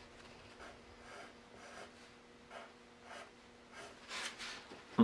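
Pencil scratching on drawing paper: a run of short, faint strokes as lines are drawn in.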